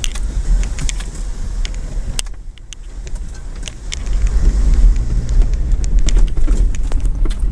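Off-road vehicle's engine driving through a muddy rut, with rattles and sharp clicks from the bouncing body and thrown mud. It dips briefly, then gets louder about four seconds in as the throttle is pushed: a slipped foot on the pedal spinning the wheels and digging the rut deeper.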